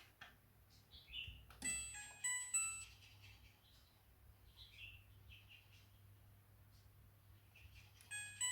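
Midea front-loading washing machine's control panel: a button click, then short electronic beep melodies of stepped tones, one about two seconds in and another starting near the end. A few faint chirps are heard in between.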